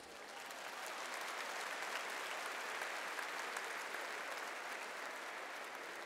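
Large audience applauding: a steady wash of clapping that builds over the first second and slowly fades toward the end.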